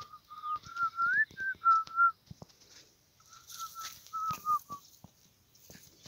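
A person whistling a short tune in clear single notes, with one note gliding upward. There are two brief phrases with a pause of about a second between them.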